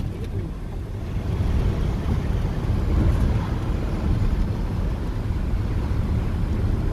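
Heavy truck with a freshly overhauled transmission driving on the highway, heard from inside the cab: a steady low engine and road rumble.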